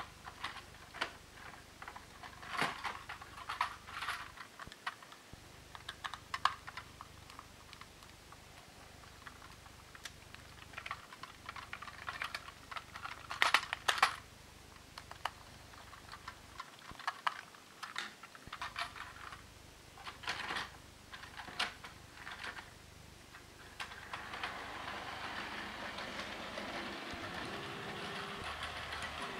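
Sharp plastic clicks and clatter as Plarail toy train cars are handled and coupled together on the track, loudest about halfway through. About 24 seconds in, the battery-powered Plarail 0 Series Shinkansen starts running: a steady motor whir with the wheels running on the plastic track.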